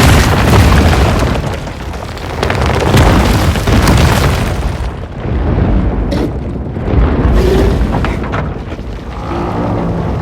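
Cinematic sound-design rumble: deep, earth-shaking booms that swell and fade in several waves, with a few faint pitched tones near the end.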